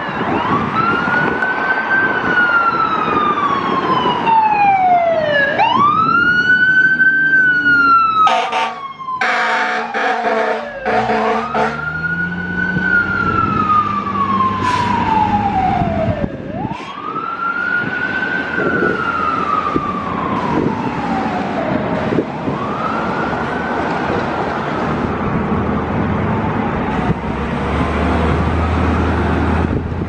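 Fire truck's Federal Q mechanical siren winding up and coasting down over and over, each wail rising quickly and falling slowly. A burst of air horn blasts comes about a third of the way in. The siren fades toward the end as the truck moves away, with traffic rumble underneath.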